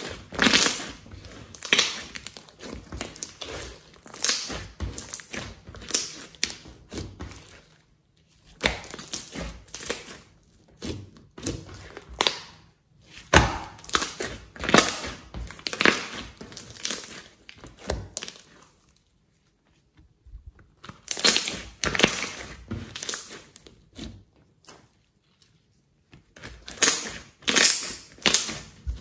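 Hands squeezing, folding and pressing a large soft slime, with sticky clicking and crackly popping in bursts, broken by short pauses.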